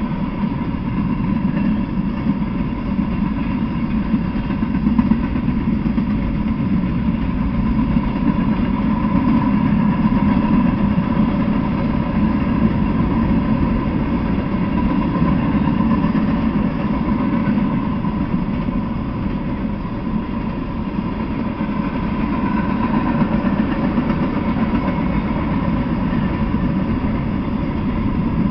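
Freight train of boxcars, covered hoppers and tank cars rolling past: a steady noise of steel wheels running on the rails, without a break.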